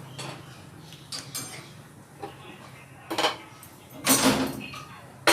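Kitchenware being handled: a few light clicks and knocks, then a louder clatter about four seconds in and a sharp click near the end, over a faint steady hum.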